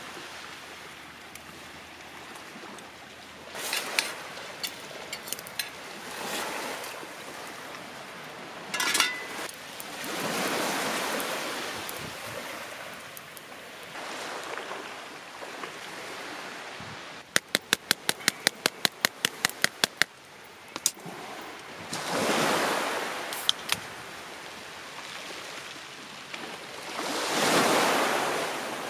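Sea waves washing onto the shore in slow swells, the last one loudest near the end. About halfway through comes a quick run of about a dozen sharp taps, roughly five a second, with a few scattered knocks earlier on.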